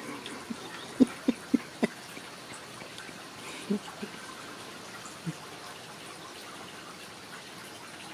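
Ragdoll kittens batting and bumping a cardboard play tube: a quick run of four sharp thumps a little past a second in, then a few softer scattered knocks.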